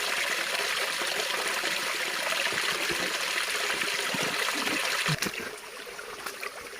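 Running water trickling steadily. It turns noticeably quieter after a short knock about five seconds in.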